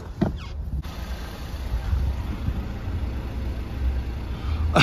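Van engine idling with a steady low rumble; about a second in, a steady hiss of outside air joins it.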